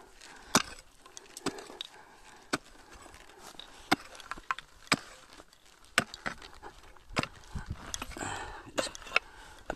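Prospecting pick striking hard, stony ground, a series of sharp single knocks about once a second at an uneven pace.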